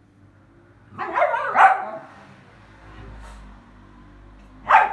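Dog barking: a quick pair of barks about a second in, then a single sharp bark near the end.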